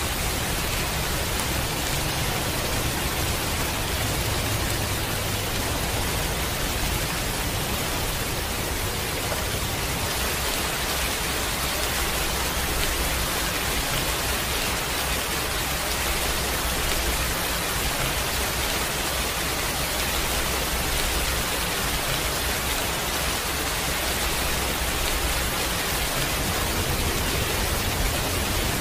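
Heavy rain falling steadily: an even, constant hiss with no separate drops or thunder standing out.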